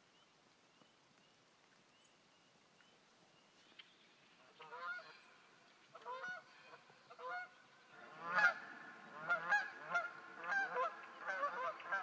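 A small flock of geese honking in flight. The calls begin a few seconds in, spaced apart, then come louder and faster from about two-thirds of the way through as the birds pass.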